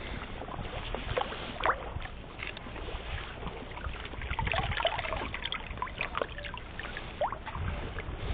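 Shallow water sloshing and trickling around submerged stones, with many small scattered splashes, as a hand dip net is swept through the water.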